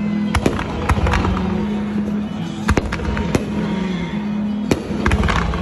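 Aerial fireworks going off in an irregular string of about ten sharp bangs as shells launch and burst, over steady background music.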